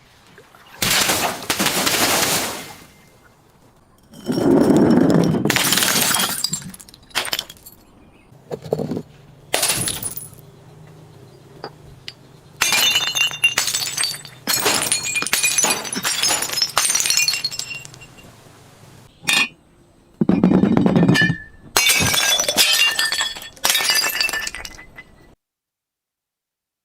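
Glass bottles being smashed and crushed: about six bursts of breaking and crunching glass, several with shards tinkling and clinking, and a faint low hum underneath in the middle. It cuts off abruptly near the end.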